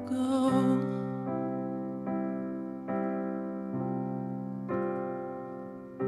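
Yamaha CP4 stage piano playing a slow outro: six sustained chords, one struck about every second, each left to ring and fade. A woman's last sung note, with vibrato, trails off in the first second.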